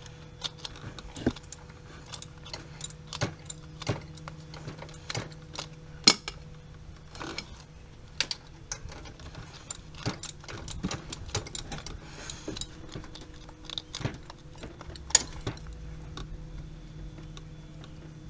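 Metal hand tools clicking and clinking irregularly, a ratchet and wrench working loose the two bolts that hold a wastegate actuator, with sharp clicks every fraction of a second to a second.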